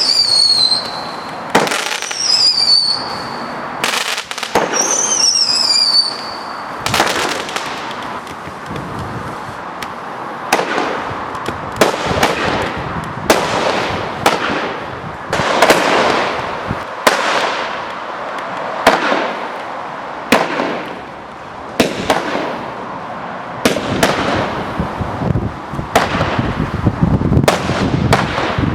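Consumer firework cakes from a box combo firing. Three whistles fall in pitch in the first six seconds, then a steady run of shots and bursts follows, about one every second, with crackle between.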